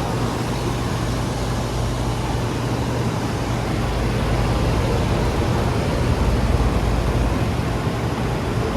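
Outdoor central air-conditioner condensing unit running steadily, its fan giving a constant whoosh over a low steady compressor hum.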